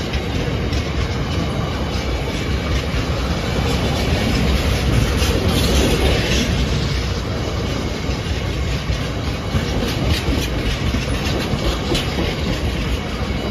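Freight train of bogie tank wagons rolling past at a level crossing: a steady rumble of steel wheels on rail with a run of rapid knocks as the wheels cross the rail joints, swelling a little around the middle.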